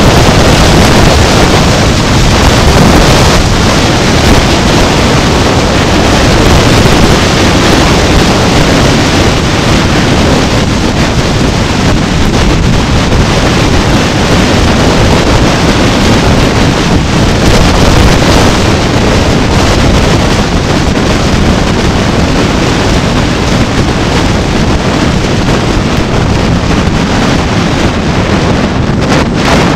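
Loud, steady wind noise buffeting the microphone of a camera riding along a road.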